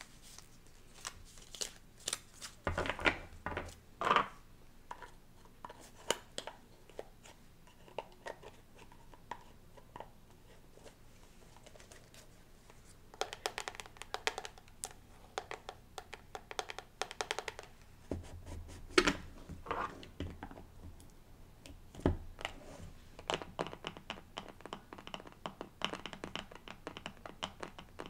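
Long fingernails tapping and scratching on small cardboard card decks and their boxes, with rapid runs of nail taps about halfway through and near the end. A few louder knocks come as the cards and boxes are handled.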